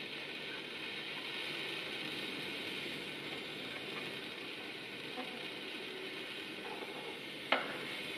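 Solder joint sizzling and crackling steadily as solder melts in under a high-heat soldering gun, next to a damp tissue heat guard. A single sharp click comes near the end.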